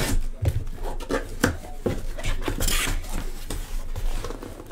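Card packs being worked out of a tightly packed cardboard hobby box: rubbing and scraping with a run of small knocks and clicks, and a crinkly rasp about two and a half seconds in.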